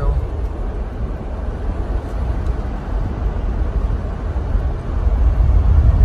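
Steady low rumble of tyre and wind noise from a Tesla driving along a paved road, heard from inside the car, growing a little louder near the end.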